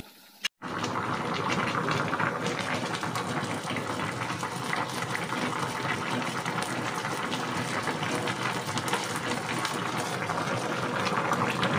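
Water boiling in a pan around banana-leaf-wrapped fish parcels (pepes), a steady, crackly bubbling that starts about half a second in after a moment of silence.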